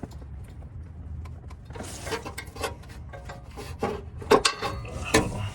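Scraping and rubbing with scattered sharp clicks and knocks, the loudest about four seconds in: a person shifting on cardboard under a car and handling an oxygen sensor socket and ratchet.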